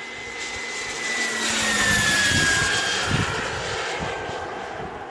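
Turbine engine of an RC jet whining as the model flies past: the sound swells to its loudest around two to three seconds in, and the whine drops in pitch as it passes, then fades.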